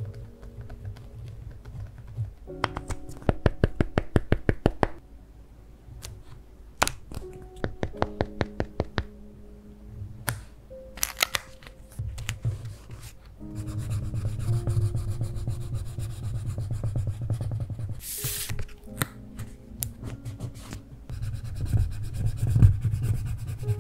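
Soft background music, with a pen writing on diary paper and a quick run of light ticks early on, then a wooden spatula rubbing stickers down onto the paper page in longer scraping passes.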